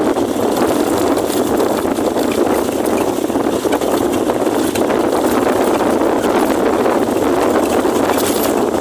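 Steady rushing noise of a car driving on a wet road in rain, with faint scattered ticks of raindrops.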